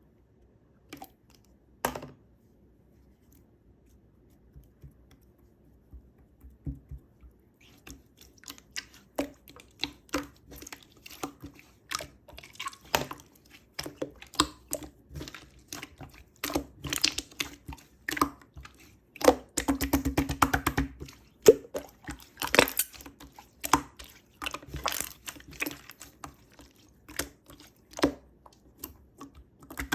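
Purple slime being squeezed and worked by hand, giving irregular sticky clicks, crackles and air-bubble pops; the slime still holds many trapped bubbles. After two lone clicks near the start it is quiet for a few seconds, then the clicking picks up and grows dense.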